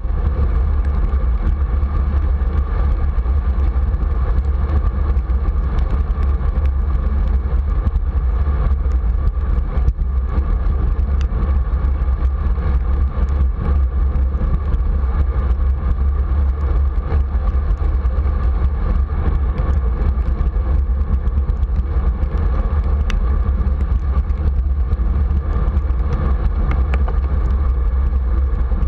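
Steady wind rumble on the camera microphone while cycling along a wet road, with a continuous noise of riding over it.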